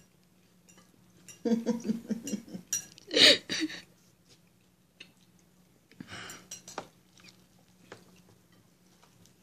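A woman laughing in short bursts, the loudest about three seconds in, then a softer breathy laugh about six seconds in.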